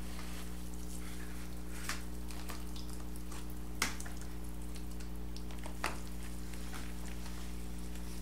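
Faint crackling and rustling of moist seed-starting soil being scooped from a plastic bucket and pressed by hand into the cells of a plastic seed tray, with three soft knocks about two seconds apart, over a steady low hum.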